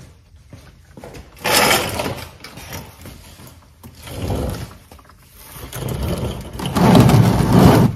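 Three bursts of rustling, scraping handling noise from someone moving about and handling things. The last burst, near the end, is the longest and loudest.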